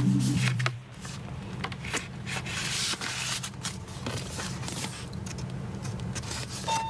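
Hands handling album packaging and paper inserts: irregular rubbing, sliding and light knocks of cardboard and paper.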